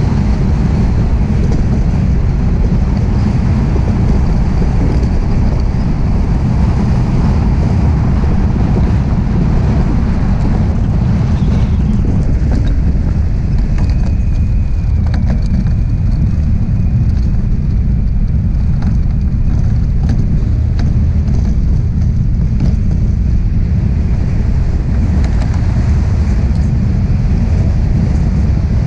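Steady, heavy wind buffeting on the microphone of a DN iceboat sailing fast over smooth lake ice, mixed with the low rumble of its steel runners on the ice.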